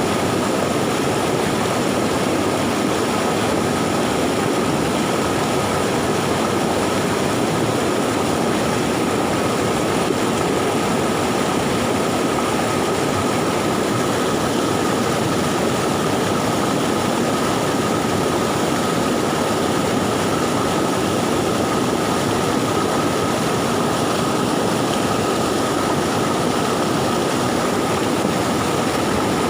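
Fast, swollen post-flood river water rushing steadily, an even unbroken noise of flowing water, with a faint steady high tone running through it.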